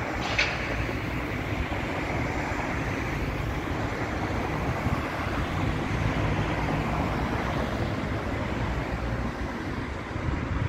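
Steady outdoor rumble of road traffic and city background noise, with a brief high chirp just after the start.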